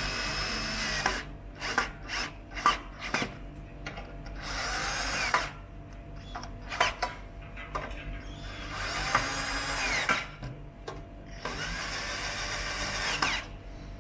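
Zuerst cordless drill-driver driving screws into a steel TV mounting bracket, running in four spells of one to two seconds each, with short clicks and taps between the runs.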